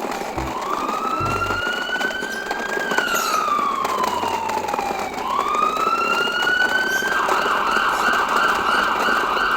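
Siren wailing in slow rises and falls, then switching to a rapid yelp about seven seconds in.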